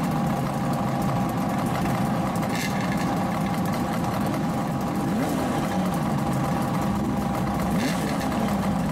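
Old Kawasaki two-stroke motorcycle engines idling steadily, with a constant exhaust drone and no revving.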